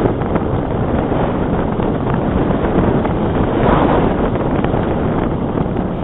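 Airflow rushing over the microphone of a camera riding on a Bixler RC foam glider in flight: a loud, steady rush that swells briefly about two-thirds of the way through.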